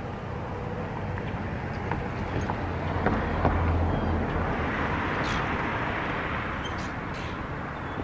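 Outdoor street ambience: a vehicle passing, its low rumble swelling about three seconds in and then easing off, with a few short high chirps.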